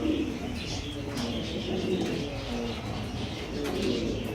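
Many pigeons cooing at once in overlapping calls, with smaller birds chirping higher up.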